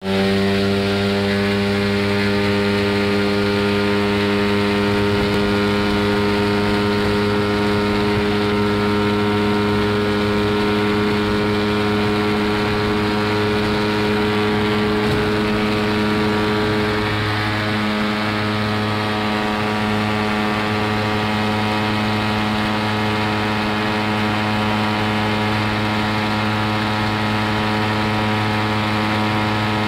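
Rans S-12 Airaile ultralight's engine and propeller at takeoff power, a loud, steady drone that holds nearly one pitch through the takeoff roll and lift-off, heard from inside the open cockpit.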